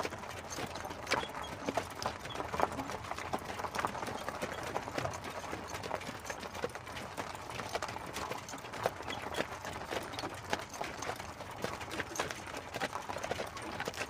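Hooves of a two-horse team pulling an open carriage, clip-clopping in a continuous, irregular stream of overlapping strikes.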